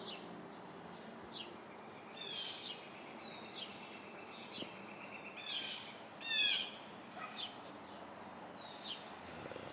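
Wild birds calling: many short, high, downward-sweeping notes mixed with several harsher, layered calls, over a thin steady high tone through the middle.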